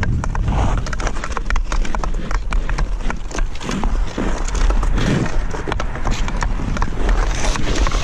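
Ice skates scraping on rough outdoor pond ice and a hockey stick clicking against the puck while stickhandling in on a goalie, many sharp clicks and scrapes over a heavy low wind rumble on the helmet camera's microphone.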